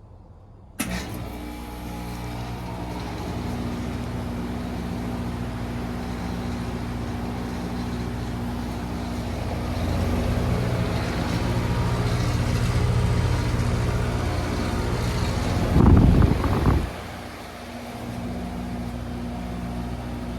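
Lennox Elite EL16XP1 heat pump outdoor unit starting up with a click about a second in, then running steadily with a hum and fan rush through its defrost cycle. A loud low rush lasting about a second comes about three quarters of the way through.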